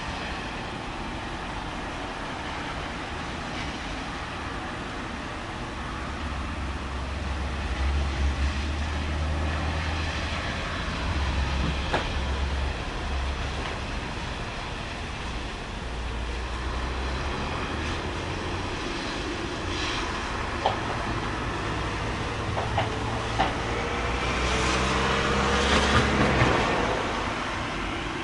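Steady hiss of a city street in a storm, with a heavy vehicle passing. Its low engine hum comes in about six seconds in, and a louder swell of tyre and motor noise with a slowly rising whine peaks near the end. A few sharp clicks come in between.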